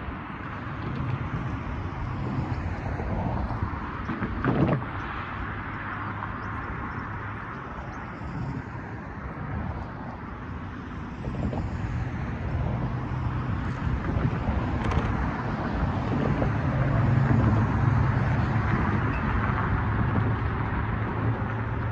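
Road traffic: cars driving across the railroad crossing, with tyre and engine noise that builds in the second half as more cars pass. There is one sharp thump about four and a half seconds in.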